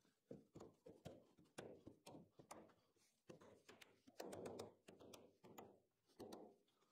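Faint knocks and taps of 4x2 softwood pieces being shifted and seated into half-lap joints on a timber frame, with a louder scraping of wood on wood about four seconds in.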